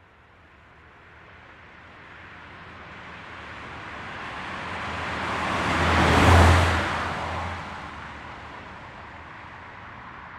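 A car driving past: its engine and tyre noise build slowly, peak sharply about six seconds in as it passes closest, then fade as it moves away.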